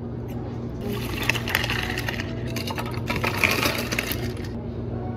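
Ice cubes poured from a scoop into a plastic cup, rattling and clinking in two pours: one about a second in and a second around three seconds in.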